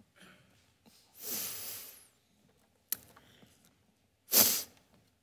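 A man breathing close to a headset microphone: one breath about a second in and a sharper, shorter breath near the end, with a single light click between them.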